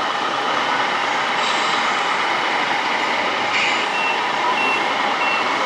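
Three short electronic reversing beeps from an RC model truck's sound module, about two-thirds of a second apart, over a steady background din.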